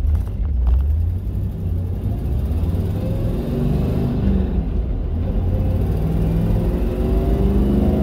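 1968 Chevrolet Camaro engine running through its deep-tone dual exhaust while driving, heard from inside the open cabin: a deep rumble whose pitch rises twice as the car accelerates through the gears of its 4-speed.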